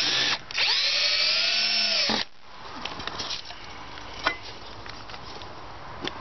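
Cordless drill driving a screw into the timber batten: a short burst, a brief pause, then a longer run of about a second and a half in which the motor's pitch rises and then holds before it stops sharply. Quieter scattered clicks follow, with one sharper click about four seconds in.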